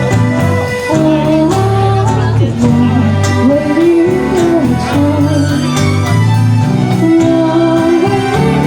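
A live band of keys, drums, bass and guitar playing a slow Chinese pop standard, with a melody line that glides and wavers in vibrato over sustained bass notes.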